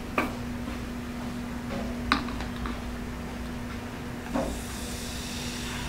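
A few light knocks as a plastic cup is handled. Then, from about four seconds in, Coca-Cola is poured from a bottle into the plastic cup and fizzes with a steady hiss.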